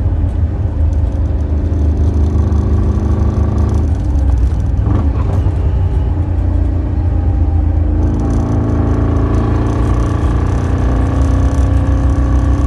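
1968 Camaro with a chambered exhaust, the engine and exhaust running under way as it is driven. The engine note shifts about four seconds in and grows a little fuller from about eight seconds.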